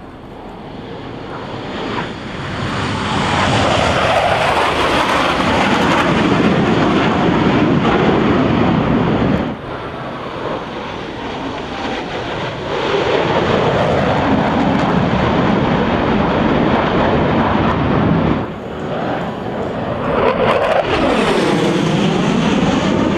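Blue Angels F/A-18 Hornet jets making low, fast passes overhead: loud jet-engine roar that swells and then cuts off abruptly, three passes in a row. The last pass carries a sweeping whoosh in pitch as the jet goes by.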